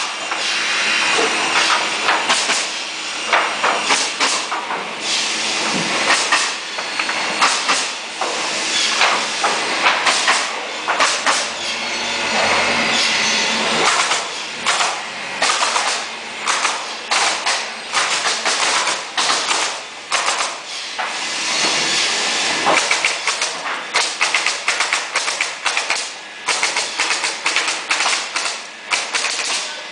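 Pneumatic nailer firing nails into wooden pallet boards, sharp cracks in irregular quick runs with hissing air, mixed with the knock and clatter of boards being handled.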